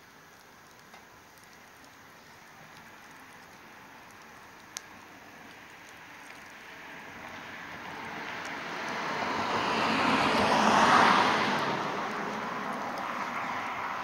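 Wood fire in a fire pit crackling faintly, with a few sharp pops. A passing vehicle swells up over several seconds, loudest about eleven seconds in, then fades away.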